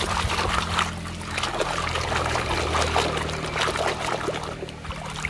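Muddy water sloshing and splashing in a plastic basin as a hand swishes a toy excavator truck through it to wash off the mud, with continual irregular splashes.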